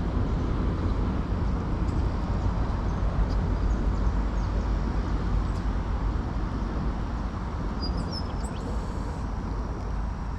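Steady low rumbling noise of wind on the microphone, with a few faint high bird chirps about eight seconds in.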